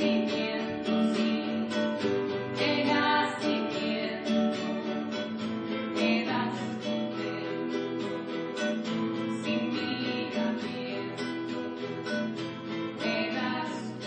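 Acoustic guitars strumming chords in a live Latin American music performance, with faint singing.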